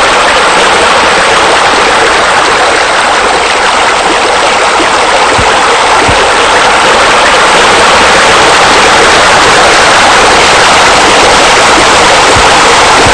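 Loud, steady rush of falling water, like a water feature wall spilling into a pool.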